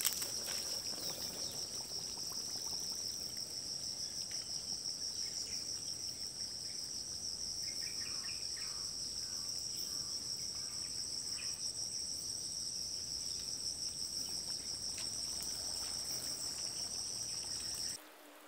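Insects chirping in a steady, high, finely pulsing drone, cutting off suddenly near the end.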